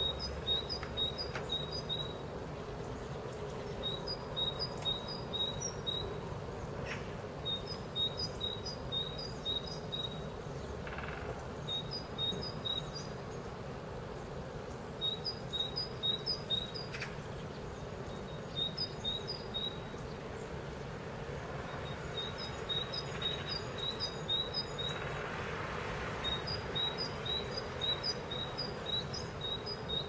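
A small songbird singing, repeating short runs of quick high chirps every few seconds over faint steady background noise.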